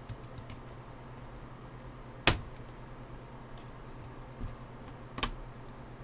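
Two sharp plastic clicks about three seconds apart, with a few fainter taps between, as a Dell Latitude D630 laptop keyboard is pried up and lifted out of its frame.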